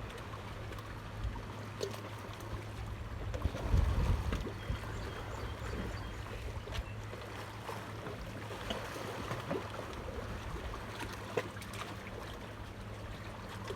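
Outdoor ambience on the water: a steady low hum, with gusts of wind buffeting the microphone (strongest about four seconds in) and scattered faint clicks.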